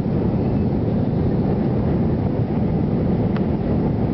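Airbus A318 jet engines at climb power and airflow, heard from inside the passenger cabin during the climb-out just after takeoff: a steady, loud, low noise. A faint brief click near the end.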